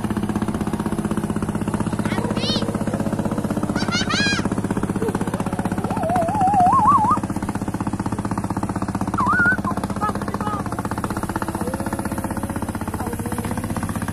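A boat engine running steadily nearby, a low even drone with a fast thumping pulse. A few brief high warbling calls sound over it about two, four, six and nine seconds in.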